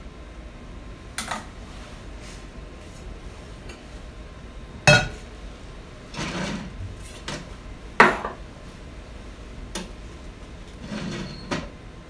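Glass crucibles and glassware clinking and knocking as they are handled at a desiccator and analytical balance: a few sharp clinks, the loudest about five and eight seconds in, with softer scraping and handling sounds between them.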